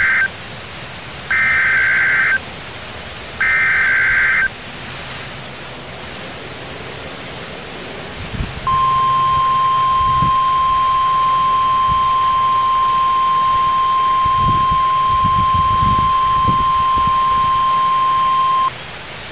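NOAA Weather Radio sending an Emergency Alert System alert: short bursts of SAME header data tones, each about a second long and two seconds apart, then a few seconds of hiss, then the steady 1050 Hz warning alarm tone held for about ten seconds before cutting off. Constant radio hiss underneath.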